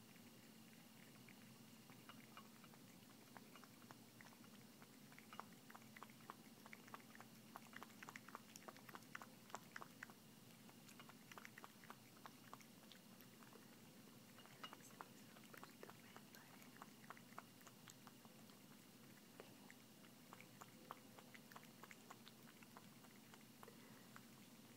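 A cat eating milk-soaked cereal from a bowl: faint, quick clicks of lapping and chewing, thickest through the middle. A steady low hum runs underneath.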